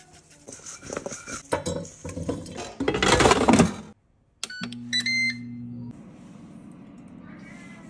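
Rattling and clatter in a stainless steel bowl of potato wedges as seasoning is shaken over them, loudest about three seconds in. After a short break, a Ninja air fryer's control panel beeps a couple of times as Start is pressed, with a low hum that then settles into a quieter steady hum.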